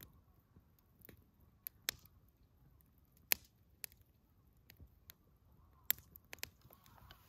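Campfire crackling: burning wood giving irregular sharp pops and snaps, about a dozen, the loudest a little over three seconds in and just before six seconds.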